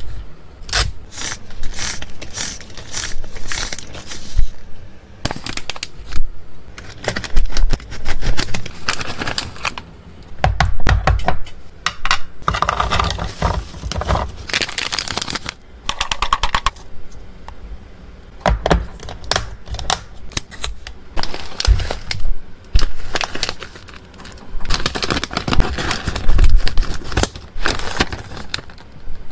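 Handling of pet-treat packaging: plastic and foil bags crinkling and rustling, freeze-dried pork treats and small dry kibble rattling into hard clear plastic boxes, with many sharp clicks and taps between.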